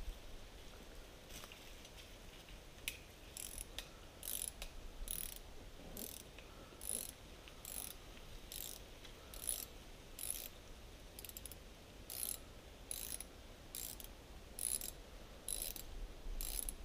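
Ratcheting hand tool worked in short strokes: a brief burst of clicks a little more than once a second, starting about three seconds in.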